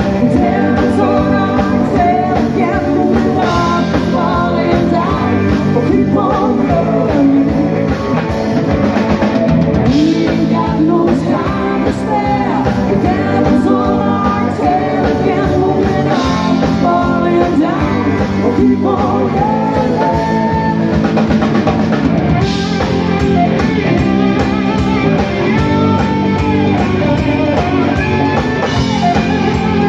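Live rock band playing: electric guitars and a drum kit with a singer's voice over them, heard through the stage PA.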